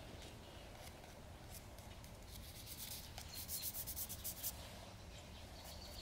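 Stick of dry pastel scratching across sketchbook paper in quick back-and-forth strokes, loudest from about two seconds in until near the end.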